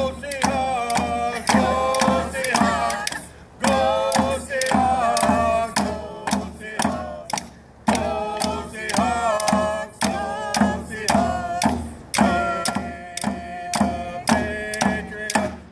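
Group of voices singing a traditional Coast Salish song, accompanied by hand drums struck in a steady beat of about two a second.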